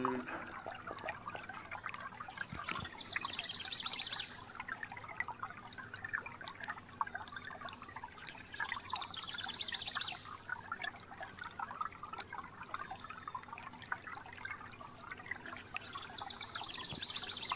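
Faint water sound: a crackling hiss full of small clicks. Three times, a few seconds apart, comes a run of rapid high ticking lasting about a second.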